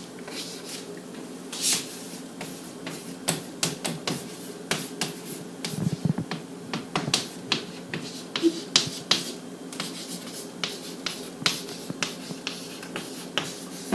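Chalk on a chalkboard while writing: a quick, irregular series of sharp taps and short scratches as each letter is formed.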